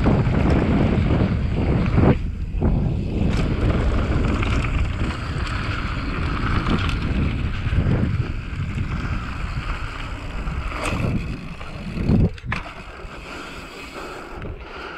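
Mountain bike riding downhill: wind rushing over the microphone and tyres running on the trail, with a few sharp knocks from the bike. It gets quieter over the last few seconds.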